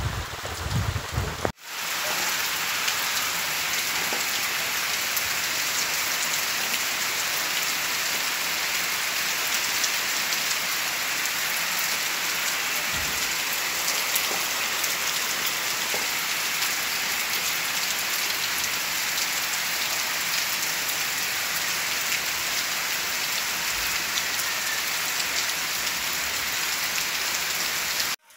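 Heavy rain falling steadily on muddy ground and trees, an even hiss, after a brief low rumble in the first second and a half.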